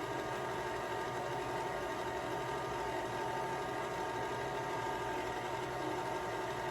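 A steady machine-like hum with several constant tones, holding an even level throughout.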